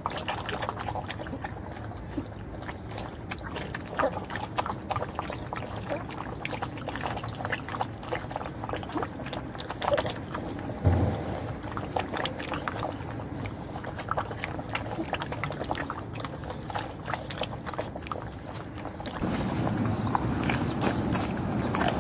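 Puppies lapping water from a plastic bucket: many quick, irregular wet clicks and splashes. Near the end a louder steady rush of noise takes over.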